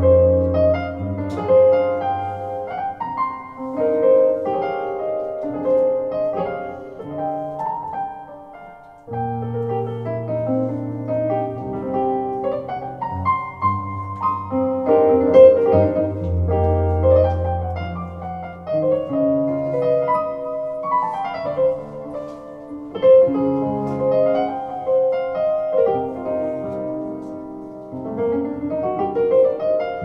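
Solo piano played on a red Nord Stage keyboard: slow sustained chords and melody over deep held bass notes. The playing thins out and softens about eight seconds in, then picks up again with a new low chord.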